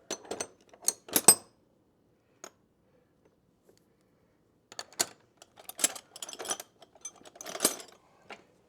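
Metal sockets and hand tools clinking and rattling as they are picked through and handled: a quick cluster of clinks at the start, a lone click, then another run of clinks and rattles from about five seconds in.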